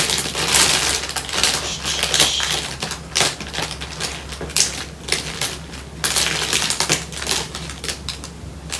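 Small plastic bags of diamond-painting resin drills being sorted through by hand, a fast run of rattling clicks and plastic crinkles, busiest in the first few seconds.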